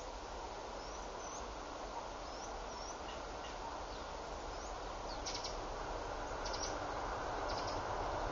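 Short rising bird chirps and a few quick chattering trills over a steady rushing background that grows slowly louder: a distant train approaching.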